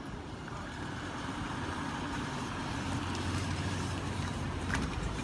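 A car driving past, its engine and tyre noise growing gradually louder.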